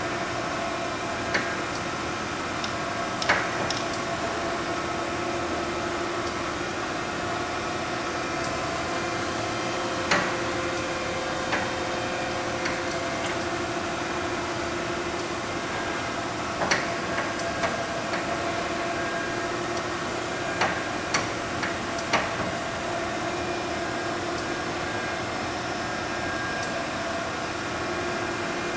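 Okamoto 1224 surface grinder running with a steady hum, with a few sharp clicks scattered at irregular intervals.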